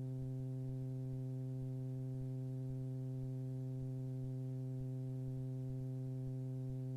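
Steady, muffled low hum made of several even tones: the Super Petrel's Rotax engine and propeller droning at climb power.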